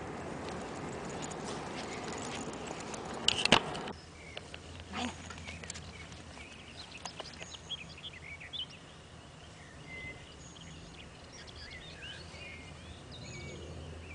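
A steady rushing noise ends abruptly about four seconds in, just after a few loud knocks. After that comes quieter open-air ambience with small birds chirping now and then.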